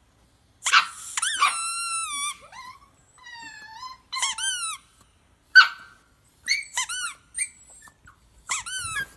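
A dog's high-pitched whining and yelping: a run of short squeaky cries, each rising and then falling in pitch, with a longer drawn-out whine near the start.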